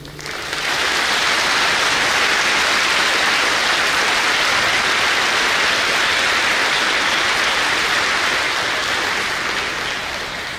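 Audience applauding: the last held chord of a string orchestra cuts off right at the start, then clapping swells up within about a second, holds steady, and tapers off near the end.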